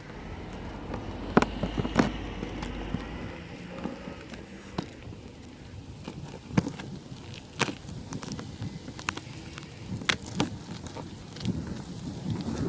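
Irregular sharp clicks and knocks of things being handled, with wind rumbling on the microphone for the first few seconds.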